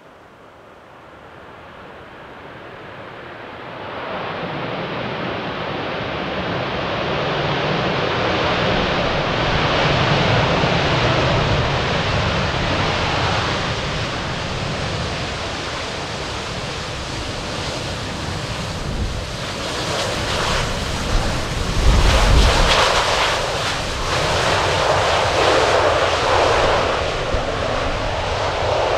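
Jet airliner's engines passing close by: the noise builds over about four seconds and stays loud, with a deep rumble peaking about two-thirds of the way through.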